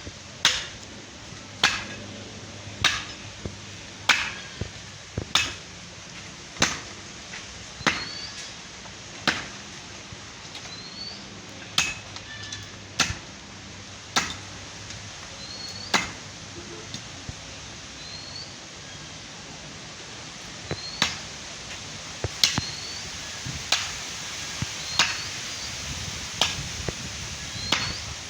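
A blade hacking into a tree branch, chopping strokes at a steady pace of about one every second and a quarter.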